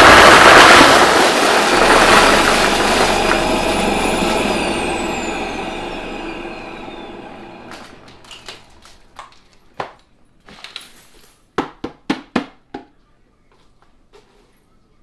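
Vacuum cleaner motor running loud, then winding down with a falling whine and fading out over about eight seconds. A series of short clicks and knocks follows.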